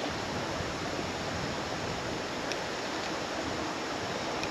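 Steady hiss of water at a creek bank, with no distinct rhythm, and one faint, very brief high chirp about two and a half seconds in.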